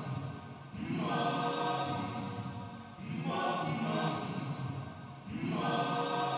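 Background music: a choir-like chant of sung voices, swelling and fading in long phrases about every two and a half seconds.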